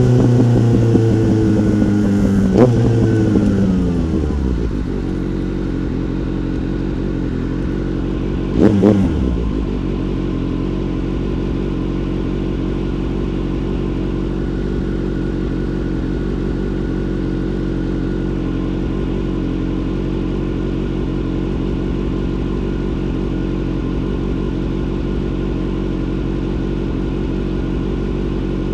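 Motorcycle engine winding down as revs fall over the first few seconds, then a quick throttle blip about nine seconds in, and then idling steadily.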